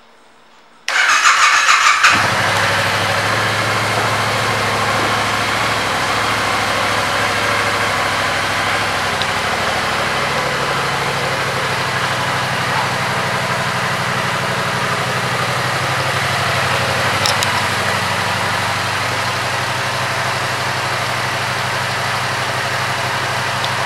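2015 Yamaha FZ-07's 689 cc parallel-twin engine started on the electric starter about a second in, cranking for about a second before it catches, then idling steadily.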